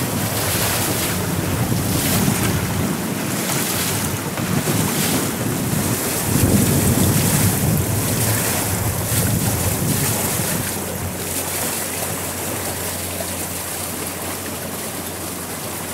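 Water washing and lapping along the hull of a Tricat 25 trimaran under sail in light wind, with wind buffeting the microphone in uneven gusts.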